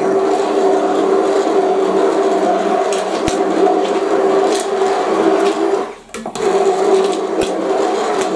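Electric immersion (stick) blender running steadily as it purées a thick broccoli soup in a cast-iron pot, cutting out for a moment about six seconds in before running again. Two short sharp clicks sound over the motor.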